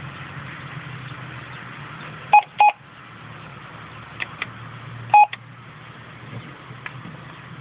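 MYPOL on-board computer's keypad beeping as keys are pressed: two short beeps close together about two and a half seconds in and one more near five seconds, with a few faint key clicks. A steady low hum runs underneath.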